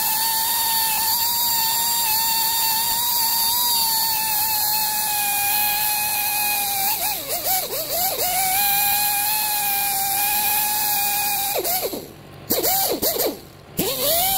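Wire wheel brush spinning on a handheld power tool, scrubbing surface rust off a driveshaft's end flange, with a steady high whine. The pitch sags for a moment when it bites harder. Near the end it cuts out twice, swooping down and back up before running on.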